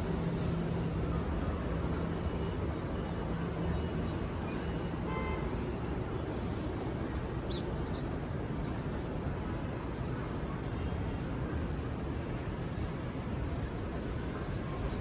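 Steady city traffic hum with repeated short, high bird calls scattered throughout.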